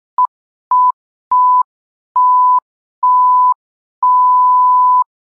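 Electronic beep tone at one steady mid pitch, sounding six times with short silent gaps, each beep longer than the last: from a brief blip to about a second long.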